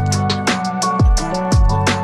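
Background music with a steady drum beat: deep kick drums and sharp hits over held chords.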